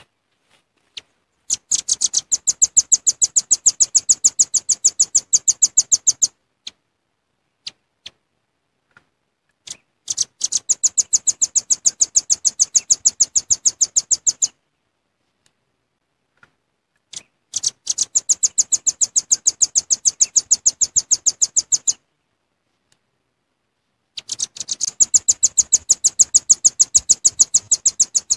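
Velvet-fronted nuthatch (rambatan paruh merah) calling in long, rapid, high-pitched trills of about ten notes a second. There are four trills, each four to five seconds long, with a few single notes in the pauses between them.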